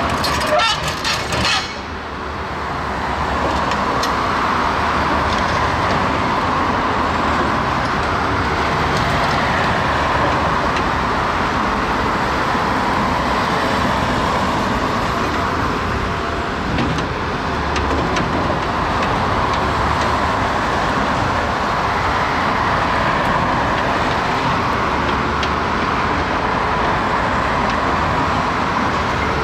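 Steady road traffic passing close by, mostly tyre noise, with a few clicks in the first two seconds.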